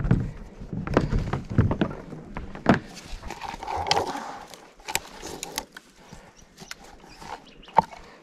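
Rustling and scattered small knocks of a rope being handled and knotted around a tree, with a sharper knock near the end.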